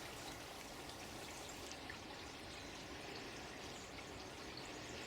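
Running water trickling and pouring steadily at a low level.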